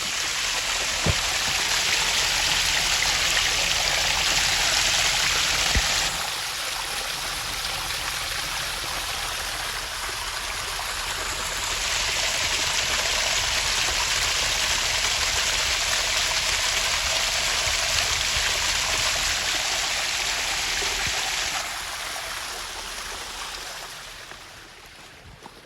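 A small waterfall running and splashing over rocks in a creek: a steady rush of water. It swells louder for two long stretches, then fades away over the last few seconds.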